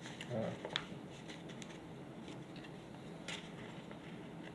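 Faint scattered clicks and light rustles from paper and small desk tools being handled, with a brief low murmur near the start.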